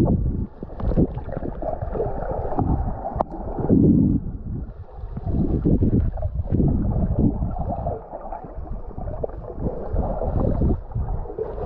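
Underwater water noise heard through a waterproof camera housing: a muffled, uneven rumbling and gurgling of moving water, with a single sharp tap about three seconds in.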